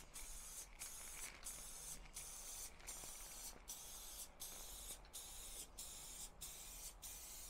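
Loctite aerosol spray adhesive hissing from the can as it is sprayed in passes, with a brief break about every three-quarters of a second.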